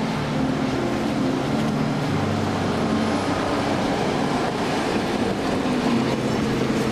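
PCC streetcar running past close by on its rails: a steady low hum with several held tones from its motors and running gear over the rumble of the wheels.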